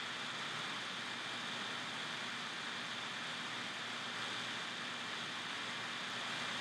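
Steady hiss of background noise with a faint, thin high tone running through it; no other event.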